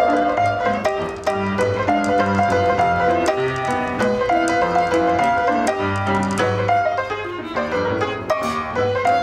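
Instrumental piano music: a quick, steady run of short, crisply struck notes over a bass line.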